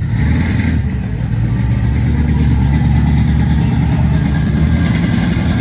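A car engine idling close by with a deep, steady rumble.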